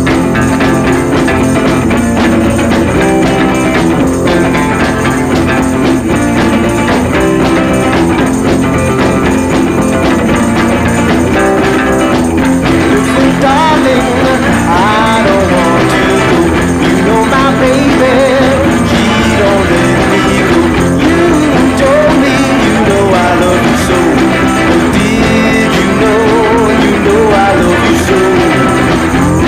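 Background song with guitar; a sung melody comes in about halfway through.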